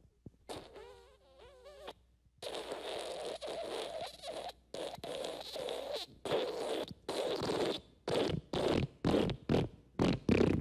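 Fart sound effects. First a short squeaky one with a wobbling pitch. Then a long sputtering, wet-sounding one that breaks up into a run of short bursts near the end.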